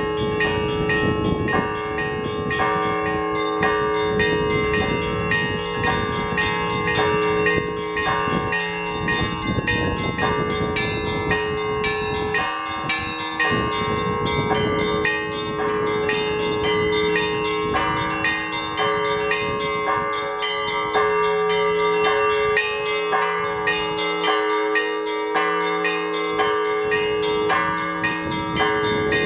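Russian Orthodox church bells rung by hand by a bell-ringer: several bells of different pitches struck in a rapid, continuous pattern, the small bells chiming over the steady hum of the larger ones. Strong gusts of wind buffet the microphone, adding a low rumble that is heaviest in the first half.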